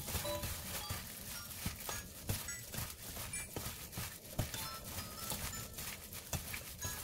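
Gloved hands tossing seasoned chives in a stainless steel bowl: irregular rustling with soft knocks. Faint music plays underneath.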